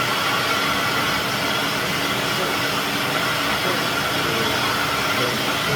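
Electric blender running steadily at full speed, blitzing wild garlic and cashews into pesto.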